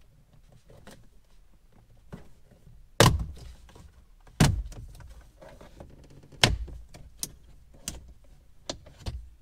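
Side trim pieces of a Porsche 981's center console being pulled off and handled by hand: a series of sharp clicks and knocks, the loudest about three seconds in and again a second and a half later.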